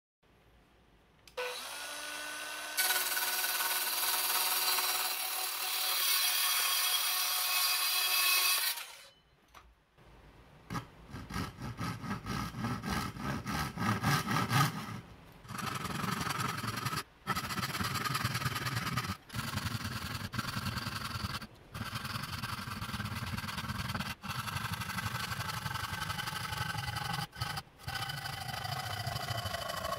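Wood being cut by hand with a Japanese pull saw, in rapid back-and-forth strokes. Near the start, a louder steady tool noise runs for several seconds before the sawing.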